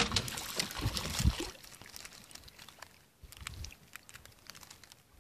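Oars of a wooden rowboat working. A sharp knock comes right at the start, then water drips and splashes off a lifted oar blade for about a second and a half. After that it fades to faint water sounds and small clicks.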